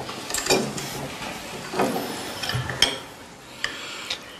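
A handful of separate light clinks of ceramic soup bowls and chopsticks as a bowl of soup is served and picked up at the table.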